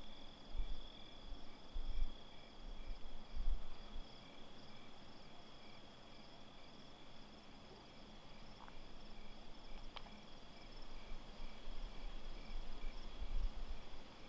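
Insects chirping and trilling steadily in a summer field, one high continuous trill with a regular pulsing chirp beneath it. Low rumbles in the first few seconds and again near the end.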